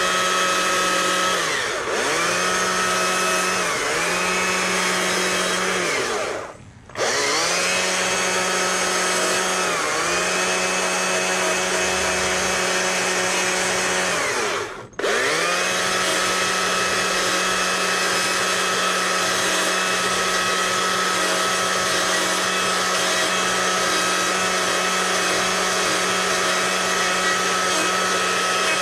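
Stihl two-stroke chainsaw with a narrow carving bar running at high revs while cutting into a wooden bear's face. The pitch sags and recovers several times in the first ten seconds as the chain bites into the wood, breaks off briefly about a quarter of the way in and again about halfway, then holds steady.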